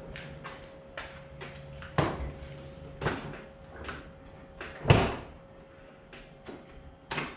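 A series of sharp clicks, knocks and clunks, with the loudest, a door-like slam, about five seconds in. A faint steady hum sits underneath.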